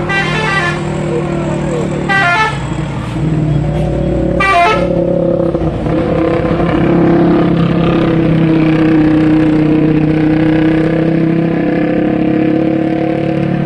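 Tour bus's basuri musical horn sounding a long, sustained multi-note chord that shifts slightly in pitch over a low rumble. Three short, higher-pitched bursts come in the first five seconds.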